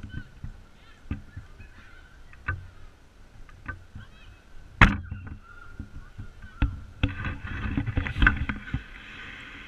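Footballs being kicked on an artificial pitch, a series of sharp thuds with the loudest about five seconds in, over faint distant shouts of children playing. From about seven seconds in the noise of play grows busier and louder.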